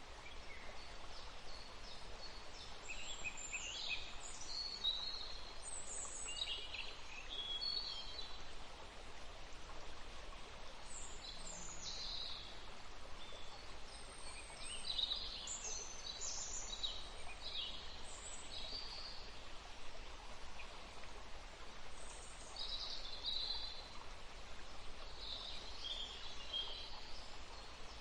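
Forest ambience: small birds chirping and calling on and off over the steady rush of a small river.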